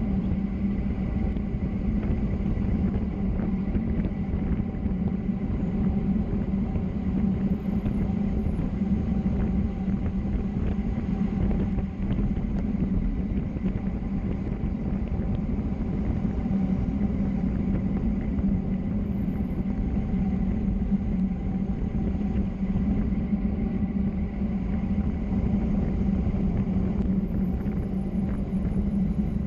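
Steady rumble of a vehicle rolling downhill at speed: road and wind noise with a steady low hum, unchanging throughout.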